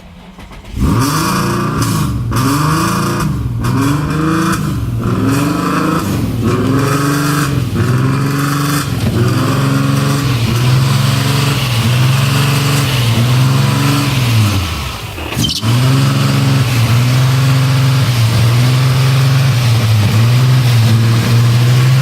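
Car engine that comes in suddenly about a second in, its speed rising and falling about once a second, then holding a steady idle from about fifteen seconds in. The car is suspected of a vacuum leak.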